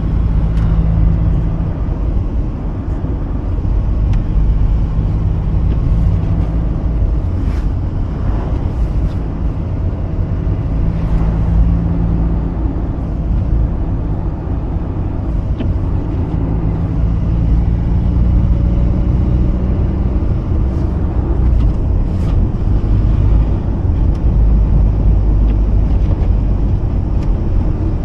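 Mazda RX-8 driving at a steady pace: the rotary engine's hum holds a constant note for stretches, shifting now and then, over a continuous low rumble of tyre and road noise.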